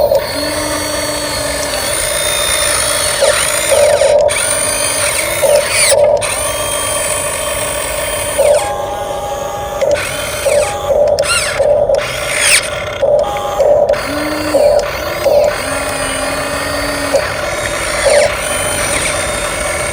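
RC dump truck's electric motor and gearbox whining as it drives, the whine rising and falling in pitch with repeated short bursts of throttle.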